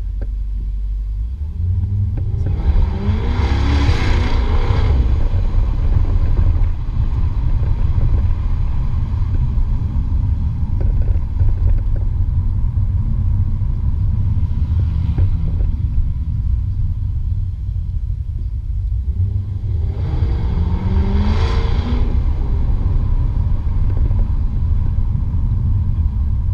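Jaguar F-Type R's supercharged 5.0-litre V8 heard onboard while driving: a steady low exhaust rumble, with two spells of hard acceleration where the engine note rises and grows loud, a few seconds in and again near the end.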